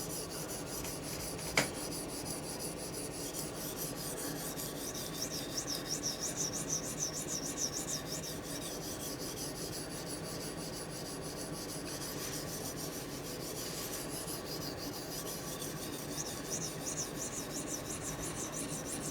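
Steel tanto blade of an OTF knife being stroked back and forth across a sharpening stone, a steady rasping scrape in quick repeated strokes, with one sharp click about a second and a half in.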